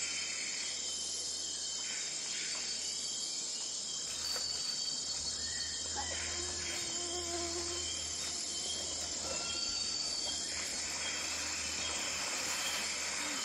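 Steady high-pitched chorus of insects, with a few brief calls over it. A low rumble comes in about four seconds in.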